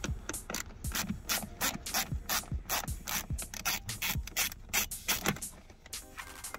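Small hand ratchet with a screwdriver bit clicking in quick repeated strokes, about three to four clicks a second, as it backs out a screw from a plastic dashboard trim panel. The clicking thins out near the end.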